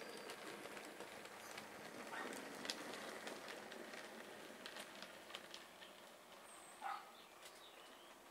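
Bachmann GWR 4500 Prairie tank model locomotive running on the track with its train, a faint whirr with scattered light clicks of the wheels on the rails, fading away over the second half as the train moves off.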